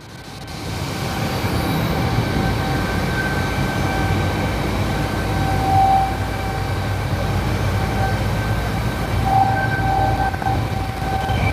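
Fire engine pump running hard with a steady whine, together with the rush of big master-stream water flows at about 2,000 gallons per minute off a single hydrant. It grows louder over the first second or so, then holds steady.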